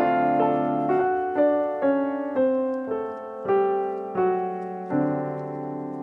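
Background piano music: a slow, gentle melody of single notes, each struck and left to fade.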